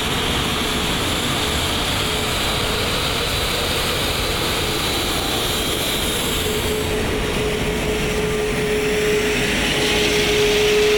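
Steady cockpit noise of an Airbus A380 taxiing: an even rush of air and idling jet engines, with a steady hum that grows louder over the second half.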